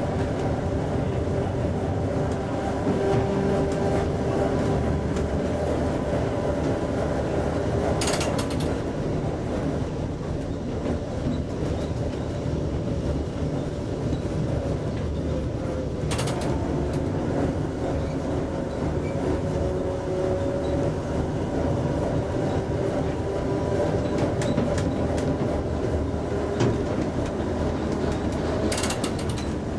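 Vintage ASEA-built SS A1 tram running on its rails, heard from the driver's platform: a steady rumble of wheels with the traction motors' hum and whine slowly shifting in pitch. Three short clatters about eight seconds apart.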